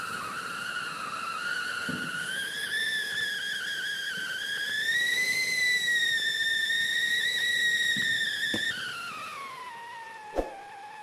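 Sony Vinayaga 'Sony Siren' fountain firework giving a loud siren whistle. The pitch climbs slowly over the first five seconds, holds high, then falls away steadily over the last two seconds as the firework burns out. A few small pops are heard, the sharpest about ten seconds in.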